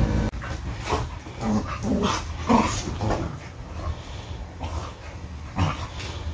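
A dog making short, scattered vocal sounds while moving about on a fabric couch, over a steady low air-conditioner hum.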